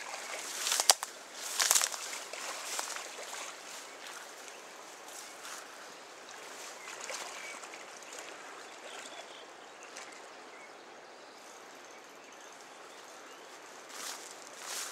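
Steady rush of a fast-flowing river, with two sharp, loud bumps about one and two seconds in.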